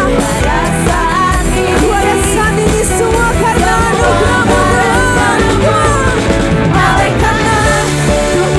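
Live worship band playing an upbeat praise song with sung vocals over drums, bass and keyboards.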